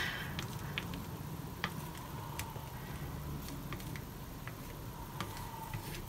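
Paintbrush dabbing and stroking thick cold wax paint onto paper: faint, with a few scattered light ticks.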